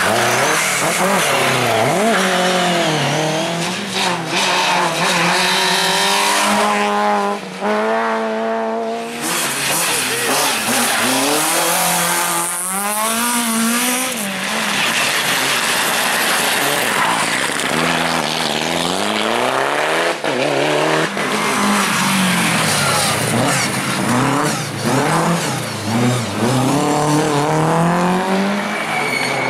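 Rally cars being driven hard on a special stage, engines revving high and the pitch climbing and dropping again and again through gear changes, with tyre squeal and noise from the tyres.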